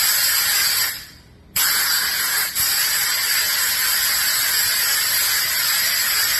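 Compressed air hissing from a handheld air gun fed through a moisture-removing filter line. The blast stops about a second in, starts again suddenly half a second later, falters briefly, then runs on steadily.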